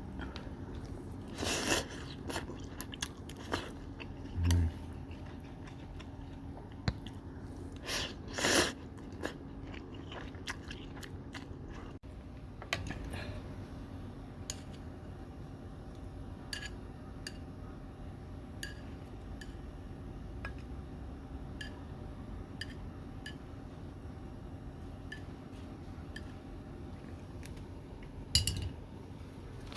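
Mouth sounds of a person eating cold meat soba: chewing with small wet clicks, and two louder bursts of eating noise in the first several seconds, over a faint steady hum.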